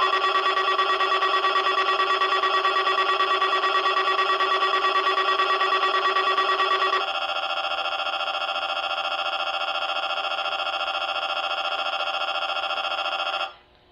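Weather radio alert tone: a loud, steady electronic tone with a fast flutter for about seven seconds, then a different, lower-pitched multi-tone alert that stops abruptly shortly before the end.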